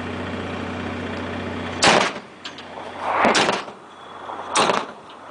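A KTO Rosomak's 30 mm Bushmaster II autocannon firing single shots, three in a row about a second and a half apart, each sharp report followed by a short rolling echo. Before the first shot a steady low engine hum runs underneath.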